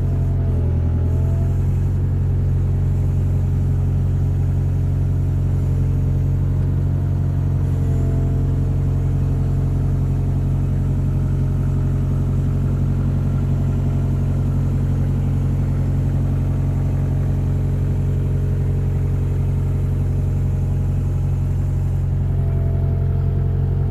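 Kubota 161-3 five-ton excavator's diesel engine running at a steady speed, a loud, even low drone.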